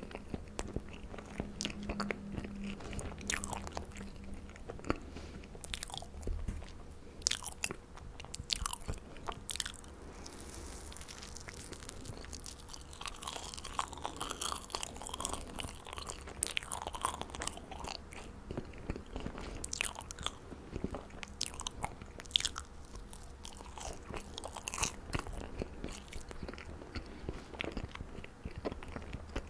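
A person chewing and biting marshmallows, with many short sharp mouth clicks coming at an irregular pace.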